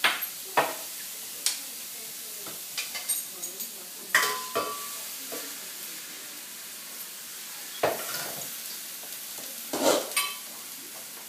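A metal utensil scraping and scooping cooked cauliflower out of a stainless steel frying pan, with several sharp clanks of metal on metal, one ringing briefly. A steady sizzling hiss from the hot pan lies underneath.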